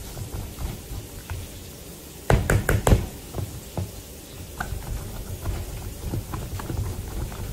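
Spring-handled potato masher mashing hot boiled potatoes in a bowl: a run of soft thuds and taps, with a quick burst of several louder knocks about two seconds in.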